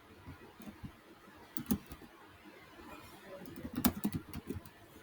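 Computer keyboard typing: a few scattered key clicks, with a quicker cluster of keystrokes a little before the end.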